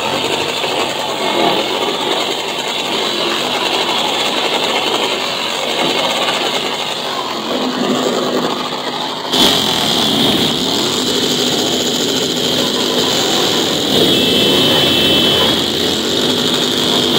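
Vehicle engines running and revving, their pitch rising and falling again and again, with voices mixed in. The sound changes abruptly about nine seconds in.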